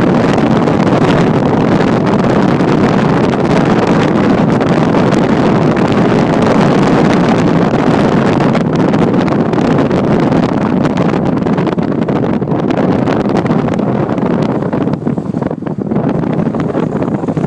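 Steady wind rush buffeting the microphone at the open window of a moving car, easing slightly about fifteen seconds in.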